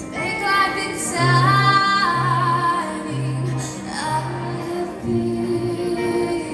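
Live band playing a song: a woman sings lead over acoustic guitar and repeated low bass notes, heard from within the audience.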